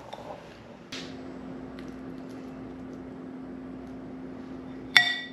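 A steady low hum, like a kitchen appliance running, comes on with a click about a second in. Near the end a spoon gives one short, ringing clink against a glass mixing bowl while scooping ravioli filling; this is the loudest sound.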